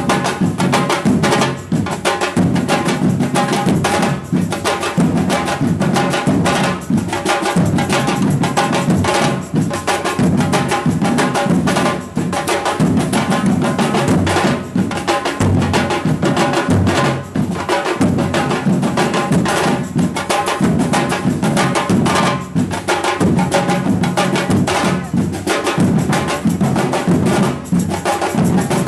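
Samba percussion band (batucada) playing a fast, dense drum rhythm without a break, loud and continuous.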